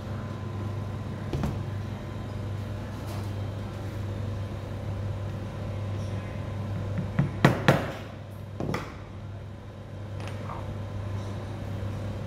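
A mallet strikes a small hole punch through firm leather on a stone pounding slab, making a stopping hole at the end of a cut. There are three sharp knocks in quick succession about seven seconds in, then a lighter one a second later, over a steady low hum.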